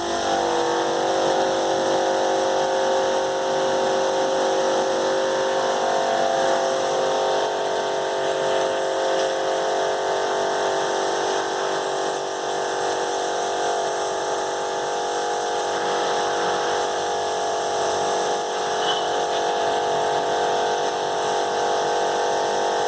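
An electric motor-driven machine starts up abruptly and runs at an even pitch, a steady hum with several fixed tones.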